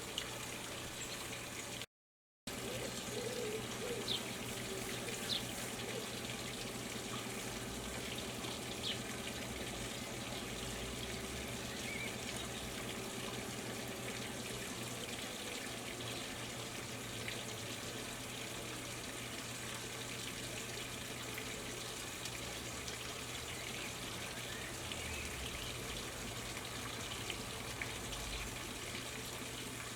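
Steady outdoor background hiss with a low hum, broken by a few faint short bird chirps in the first ten seconds.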